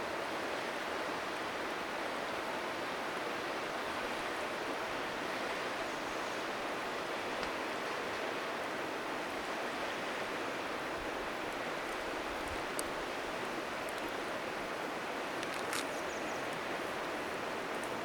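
Steady rushing of a river, with a few faint sharp crackles from a wood fire.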